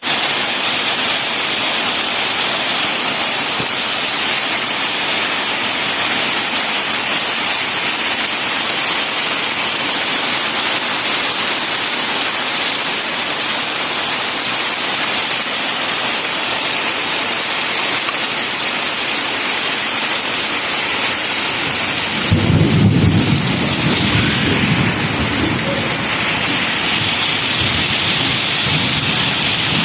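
Steady rain falling, with a low roll of thunder that rises late on and rumbles for several seconds before fading.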